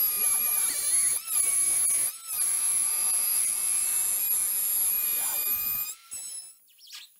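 Makita 18V cordless trim router running at speed with a steady high whine as it cuts a half-circle in plywood on a circle jig. The whine dips briefly twice and cuts off about six seconds in.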